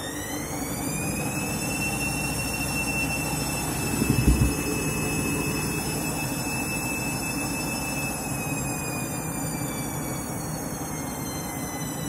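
Washing machine on its spin: the drum motor's whine rises to a steady high pitch in the first second or so, holds, then starts to sink after about eight seconds. A brief heavy thud comes about four seconds in, typical of the drum knocking with an out-of-balance load of only two heavy, wet items.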